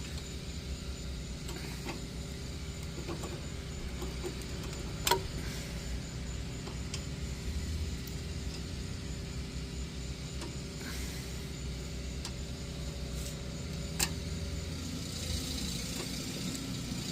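Steady low mechanical rumble and hum, with two sharp clicks, one about five seconds in and one near fourteen seconds.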